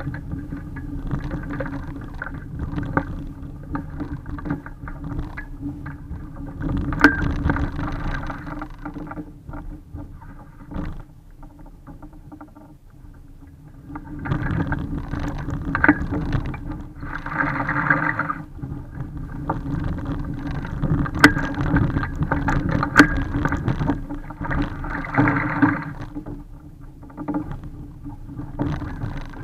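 Water slopping against the hull of a small sailing dinghy, with scattered knocks and clicks from the boat's fittings and two louder splashing swells partway through, as people wade and handle the boat alongside. A low steady drone runs underneath.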